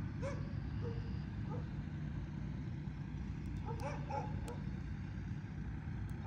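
A dog yips and barks a few times in short calls, clustered near the start and again about four seconds in, over a steady low engine rumble.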